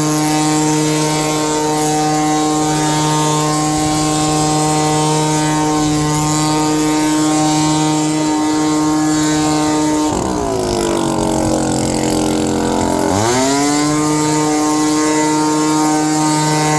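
Gas leaf blower running at full throttle, clearing debris. About ten seconds in the engine drops toward idle, then revs back up to full speed about three seconds later.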